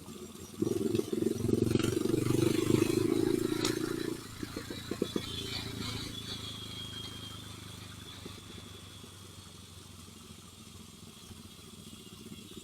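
A motor vehicle's engine, loud for about three seconds and then fading away as it passes.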